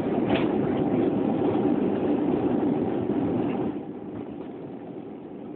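Jet airliner heard from inside the cabin during landing: a loud, steady rush of engine and air noise that drops off sharply about three and a half seconds in.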